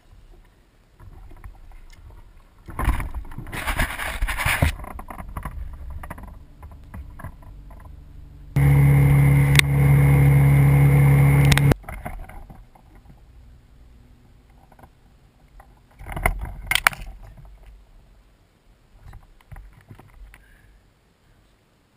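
Boat motor running with the boat under way and water splashing along the hull, heard in several short cut-together clips; loudest and steadiest for about three seconds in the middle, with quieter stretches between.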